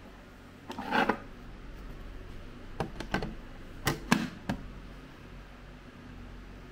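A handful of sharp clicks and knocks over a steady low hum, the loudest about a second in and around four seconds in.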